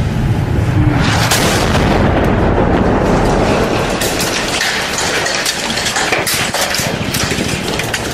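Loud, dense rumbling noise with a heavy low boom fading in the first second, then a crackling haze with many sharp cracks through the second half.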